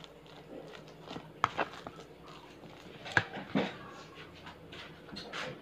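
Scattered knocks and clicks of kitchen items being handled and moved, with sharp ones about a second and a half and three seconds in.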